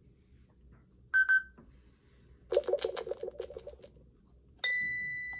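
Electronic lie-detector game unit: a short double beep, then a rapid run of electronic ticks for about a second and a half as it reads the answer, then a bright ding that rings and slowly fades as it gives its verdict, here truth.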